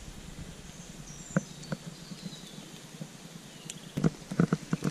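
Potatoes and meat frying in a pan over a fire, a steady faint sizzle, with a few sharp knocks: two early on and a louder cluster of them about four seconds in.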